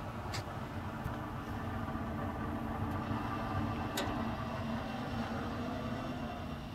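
Steady low rumble of outdoor background noise, with two faint clicks, one near the start and one about four seconds in.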